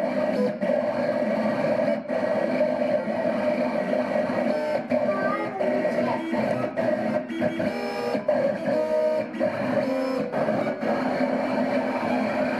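JK 721 vinyl cutting plotter running a test cut. Its stepper motors whine steadily while the knife carriage and feed roller move in short runs, the pitch shifting with each move and dipping at brief stops.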